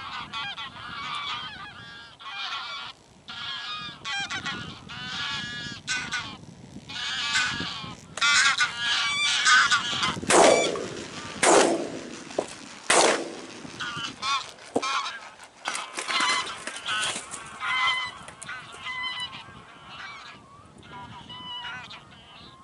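A flock of geese honking, many overlapping calls. The calling is loudest near the middle, where three sharp loud sounds come about a second and a half apart.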